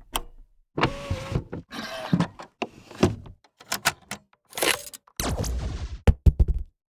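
A quick run of short, unrelated sound effects, about one a second, each cut off before the next. There are noisy rushes and knocks, and a cluster of sharp clicks near the end.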